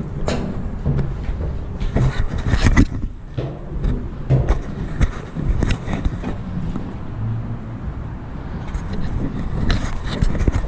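Footsteps and irregular knocks on steel stair treads as someone climbs, over a steady low background rumble.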